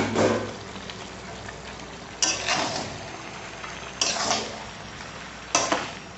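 A spatula scraping and turning chicken and green papaya curry in an aluminium kadhai, four strokes about every second and a half to two seconds, over a steady frying hiss.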